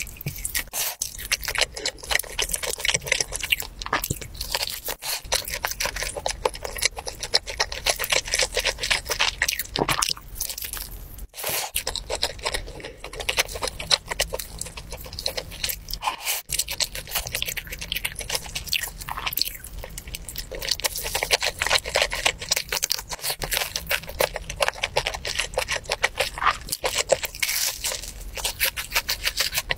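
A person chewing and biting sauce-glazed grilled chicken: a continuous stream of wet, crackly chewing and crunching mouth sounds, broken by a few short pauses.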